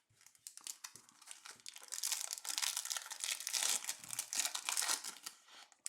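Plastic trading card pack wrapper crinkling and tearing as it is handled and opened, a dense crackle that grows loudest in the middle and fades near the end.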